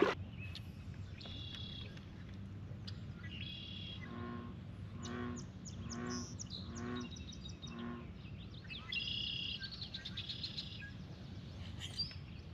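Birds calling: short high chirping phrases several times. In the middle comes a run of four evenly spaced, lower calls about a second apart. Under it all is a steady low background noise.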